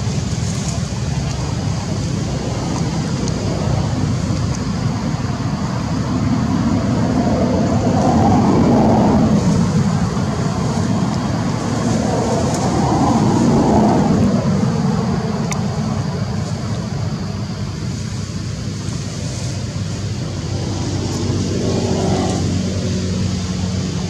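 Steady low rumble of road traffic, with vehicles passing by that swell and fade three times.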